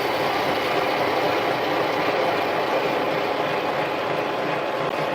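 Harbor Freight mini lathe running while facing the end of a 1-inch 1018 cold-rolled steel bar: a steady, even machining noise.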